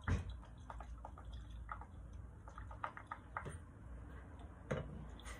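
Vanilla dripping from a small bottle into a glass blender jug of punch: faint scattered drips and ticks, with a sharper knock at the start and another near the end.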